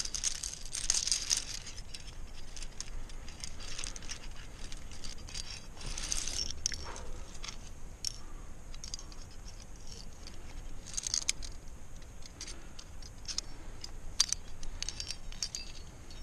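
Climbing gear (carabiners and quickdraws racked on a harness) clinking and jangling as a climber handles a quickdraw and moves on rock. Irregular small metal clicks come with short rustles and scrapes.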